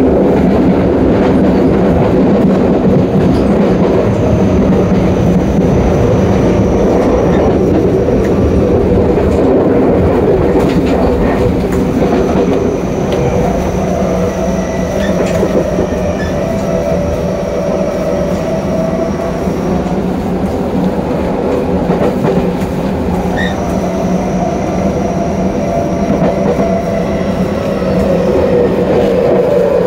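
Tokyo Metro 08 series subway car running at speed, heard at the gangway between cars: a steady loud rumble of wheels on rail with clattering over rail joints. A faint high whine fades in and out, and a lower tone falls in pitch near the end.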